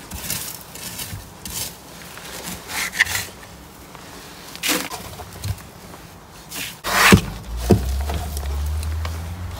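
A small plastic shovel scraping and rustling through wood shavings and hay, scooping soiled bedding and rabbit droppings, in separate short strokes. The loudest scrape and knock come about seven seconds in, followed by a low rumble.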